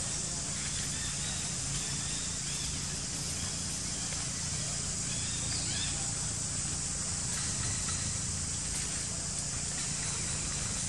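Steady forest ambience: a constant high-pitched insect drone over a low rumble, with a few faint chirps near the middle.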